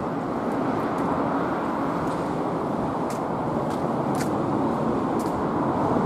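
Steady hum of city traffic, an even rumbling noise with a few faint scattered clicks over it.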